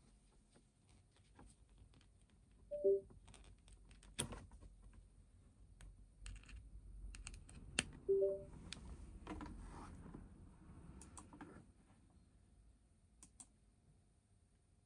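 Clicks and small handling noises of a USB-C cable being worked into an RP2040-Zero microcontroller board, with two short two-note computer device chimes: falling notes about three seconds in, the USB-disconnect sound, and rising notes about eight seconds in, the USB-connect sound as the board is plugged in.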